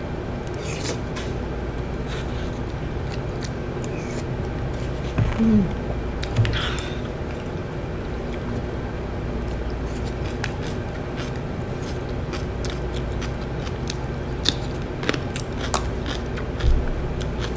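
Eating sounds: chewing, with scattered light clicks of chopsticks and a spoon against bowls and takeout containers. A steady low hum runs underneath.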